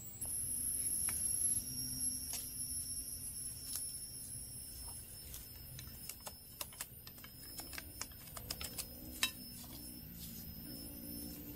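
Scattered sharp clicks and light knocks, sparse at first and coming thicker from about six seconds in, over a steady high-pitched hum.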